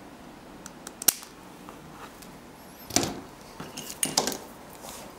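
Scissors snipping through a four-way ribbon cable, one sharp click about a second in. Then a knock and a few small knocks and rustles as the scissors are set down and the cable is handled on a cutting mat.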